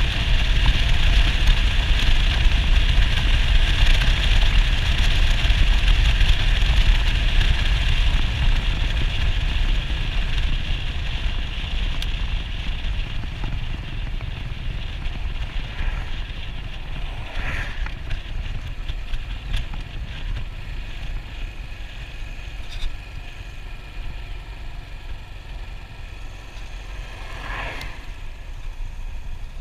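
Wind and road rush while riding a Yamaha SR400 motorcycle: a heavy low rumble with a hiss above it, slowly getting quieter. Two short swells of sound come in the second half.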